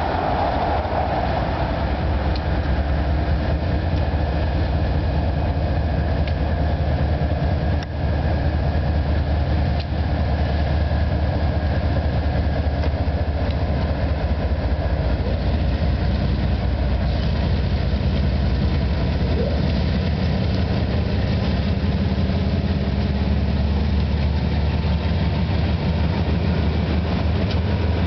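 Diesel locomotives at the head of a freight train drawing near and passing close by: a steady, heavy low engine rumble mixed with the noise of the train on the rails.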